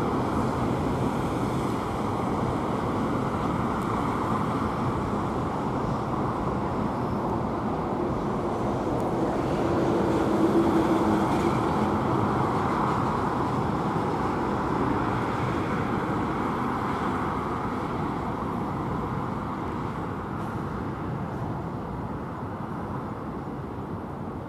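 Freight train on an industrial steel-works railway running over a distant viaduct and bridge: a steady rumble blended with road traffic. It swells about ten seconds in with a brief whine, then slowly fades toward the end.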